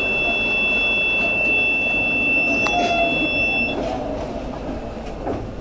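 A tram's electronic buzzer sounds a steady high tone, two pitches at once, for about four seconds and then cuts off, with a single click shortly before it ends. Beneath it is the low rumble of a tram standing at a stop in city street noise.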